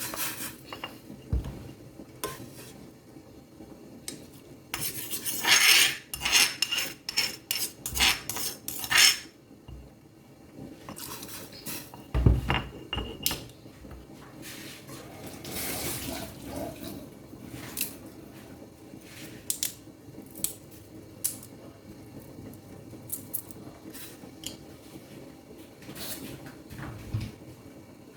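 Cutlery clinking and scraping against a plate while eating. There is a quick run of clinks about five to nine seconds in and a dull knock about twelve seconds in.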